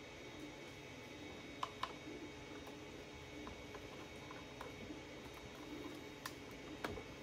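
Faint handling of cables and plastic connectors inside an open server chassis, with two quick sharp clicks about a second and a half in and two more near the end.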